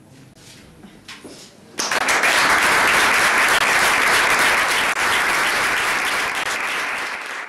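Audience applause starts suddenly about two seconds in, holds steady, and fades near the end. The play is over and the actors are bowing.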